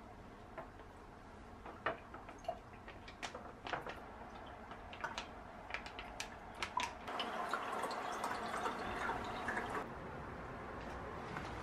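Orange juice squeezed from a plastic pouch into a glass, with scattered small clicks and crackles of the pouch being handled, and a steadier pour and drip of liquid from about seven to ten seconds in.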